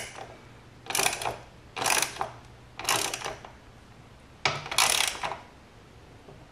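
Socket ratchet clicking as it tightens a motorcycle swing arm spool bolt: four short runs of clicks about a second apart, one per return stroke of the handle, the last run a little longer.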